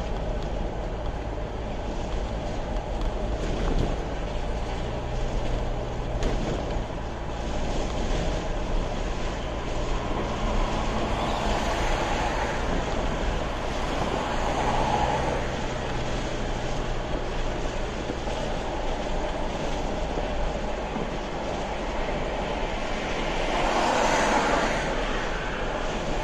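Road and engine noise of a car driving at highway speed, heard inside the cabin: a steady rumble from tyres and engine that swells a few times.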